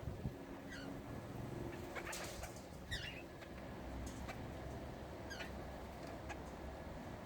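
Parrots giving short chirps that slide downward in pitch, about five of them a second or so apart, with a couple of sharp knocks in between.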